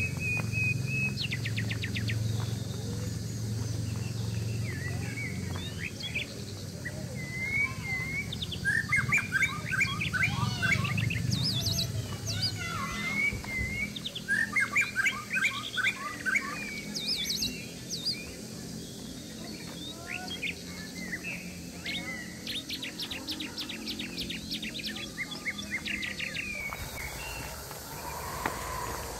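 Several birds chirping and whistling, with bursts of fast repeated trill notes, over a low steady hum that fades out about halfway through.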